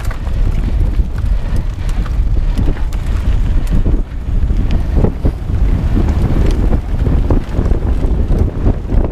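Wind buffeting the microphone of a camera riding on a mountain bike, over tyre rumble on a bumpy dirt singletrack, with scattered clicks and rattles from the bike.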